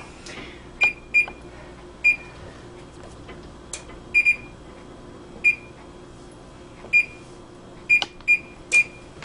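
Electric range's oven control panel beeping as its keys are pressed to set the oven: about ten short, high beeps at uneven spacing, some in quick pairs, over a faint steady hum.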